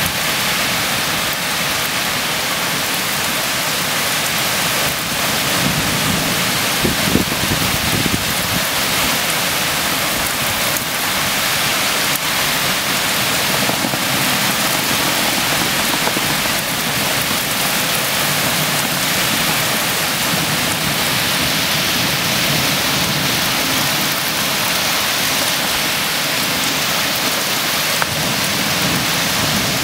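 Torrential thunderstorm rain pouring down, a loud, steady, dense hiss, with a brief louder low rumble about seven seconds in.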